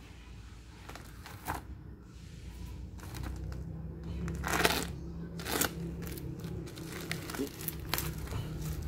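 Parcel packaging being handled and opened: crinkling and rustling with sharp crackles, two stronger ones about halfway through.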